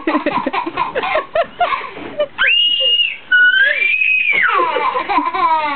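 A toddler screaming playfully: about two seconds of giggly, choppy vocal sounds, then a short shrill scream, a brief second one, and a long high scream that slides down in pitch near the end.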